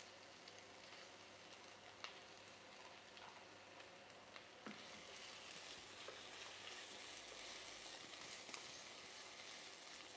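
Faint sizzle of sliced white onions sweating in oil in a pot, with a few light clicks of the spatula stirring them. The sizzle grows a little louder from about five seconds in.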